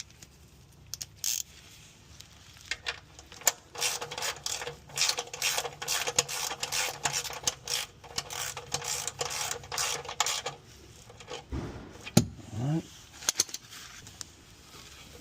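Rapid metallic clicking and clinking of hand tools and the oil drain plug bolt as the bolt is snugged up under the car. The clicking comes thick and fast for several seconds in the middle, then thins to a few isolated clicks.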